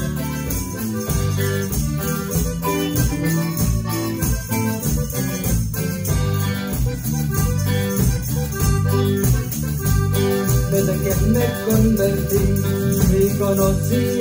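Live band playing an instrumental passage: accordion melody over drum kit, electric bass and guitar, with a steady beat.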